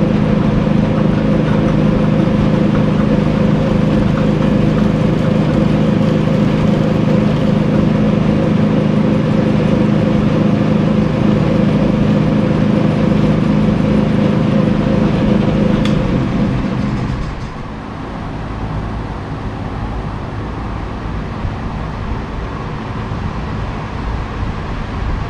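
Atlas lathe running steadily with a level hum while turning a plastic hammer head. About sixteen seconds in there is a click, and the lathe winds down and stops, leaving a quieter even background noise.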